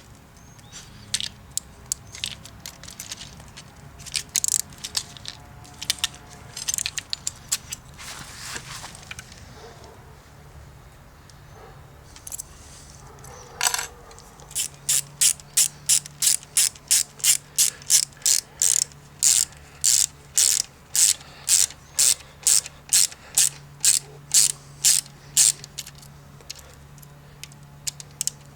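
Scattered clicks and knocks of small hard parts being handled and fitted, then about halfway through a ratchet starts clicking in a steady run, about two clicks a second, as the mounting bolts of a bike-lock frame bracket are tightened.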